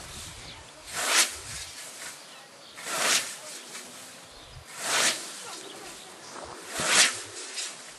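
Hand scythe swishing through tall grass in four even mowing strokes, about one every two seconds.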